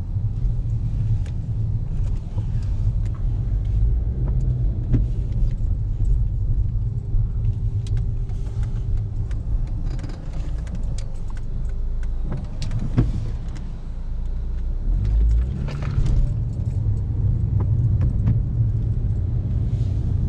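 Car running with a steady low rumble, heard from inside the cabin while driving. Scattered light clicks and rattles come through.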